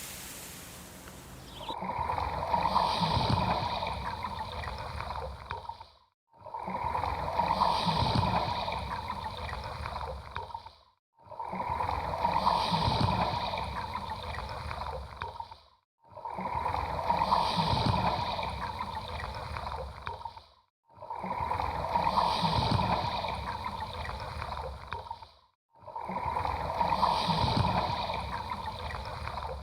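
Ocean waves washing in, the same surge of rushing water repeated about every five seconds with a sudden cut to silence between each, like one short recording looped.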